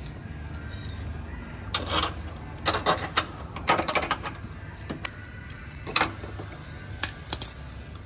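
Metal hardware clinking and rattling in a string of short bursts from about two seconds in: a socket extension fitted over a steel stud knocks against the car's front fender bracket while the stud is bent to angle.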